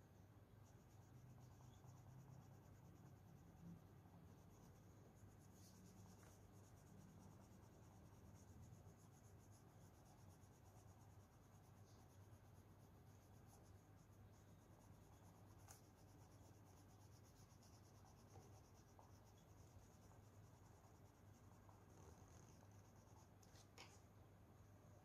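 Faint scratching of colour being rubbed onto paper, brown colour shading a drawing, over a low steady hum.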